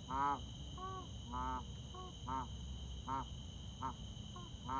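A chicken wheezing: a short, squeaky, pitched note with each breath, repeated about every half to one second, alternating louder and fainter. The owner suspects gapeworm as the cause.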